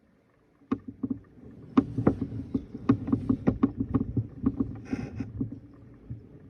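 A long human belch from soda gas in the stomach. It starts about a second in and runs for several seconds as a string of rapid, irregular low pops.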